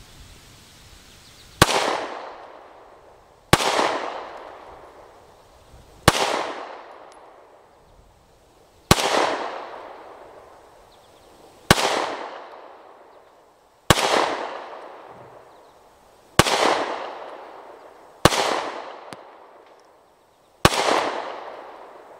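Springfield Hellcat 9mm pistol firing nine single shots in slow aimed fire, two to three seconds apart, each shot trailing off in a long echo.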